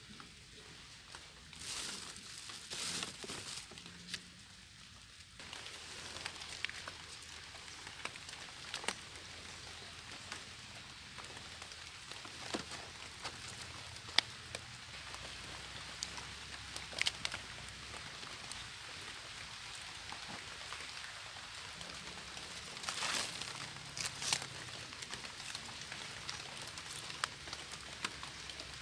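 Rain pattering on forest leaves: a steady hiss with scattered drop ticks, with a few louder rustles of handled leaves near the start and again about three-quarters of the way through.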